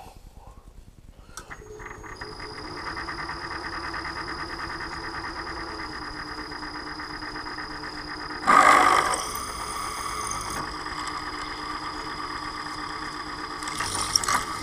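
Milling machine spindle starting up and running steadily with a high whine. About 8.5 s in, the end mill plunges into the stainless steel tube: a loud cutting burst of about two seconds, then the spindle runs on.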